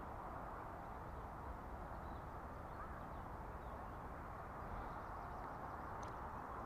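Steady low outdoor hiss with faint bird calls, and a faint click about six seconds in.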